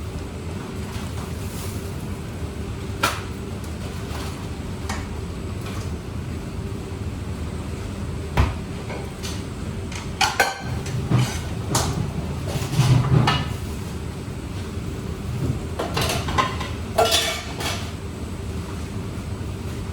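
Kitchen clatter: dishes, pans and utensils knocking and being set down every few seconds, with a busier run of clinks near the middle and again later, over a steady low hum.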